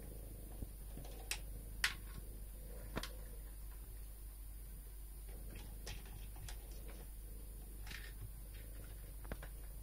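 Cat foraging dry food from a Catit Senses Digger plastic puzzle feeder: scattered sharp clicks and taps as the kibble and the cat knock against the feeder's plastic tubes, about eight in all, the loudest nearly two seconds in.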